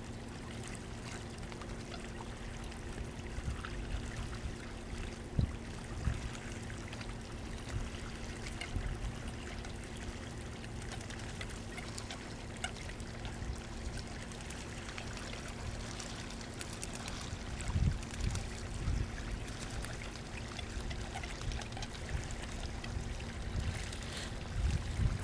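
River water running and trickling, with a steady low hum underneath and a few brief low thuds.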